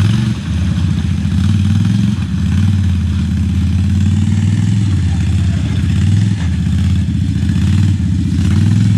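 Can-Am ATV engine running steadily at low throttle as the quad works through a deep mud hole, its pitch shifting only slightly.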